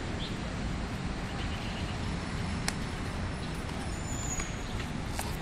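Steady low rumble of distant road traffic, with one sharp click about halfway through.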